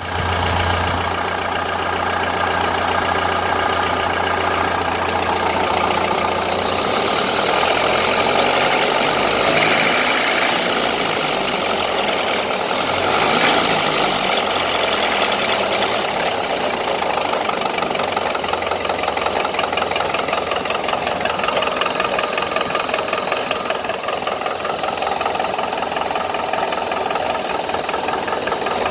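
1931 Ford Model A pickup's four-cylinder flathead engine running steadily with a knock of not yet diagnosed cause.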